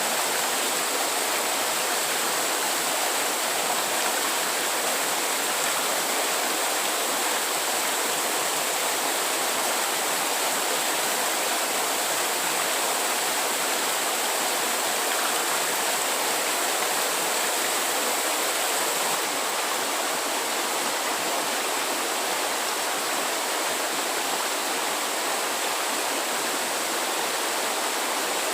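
Steady rush of running water, even and unbroken, with a faint high steady tone above it.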